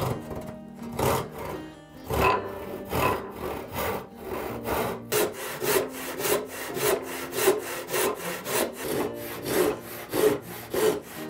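Hand saw ripping a wooden board along its length, the rasp of the teeth on each stroke. The strokes are slow at first and quicken to about two a second.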